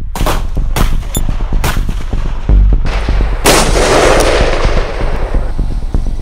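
A .44 Magnum handgun firing several loud shots a second or so apart. The loudest comes about three and a half seconds in, with a long ringing echo after it. A steady beat of background music runs underneath.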